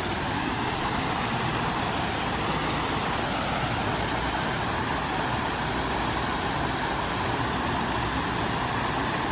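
Water from a small waterfall pouring over a stone ledge and splashing into a rocky pool: a steady, unbroken rush.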